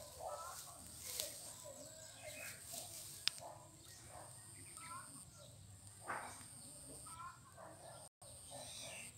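Faint rural ambience: scattered bird chirps over a steady high insect drone, with one sharp click about three seconds in.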